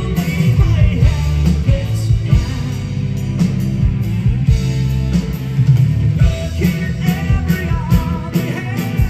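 Progressive rock band playing live: drums, electric guitars and keyboards, with a lead voice singing.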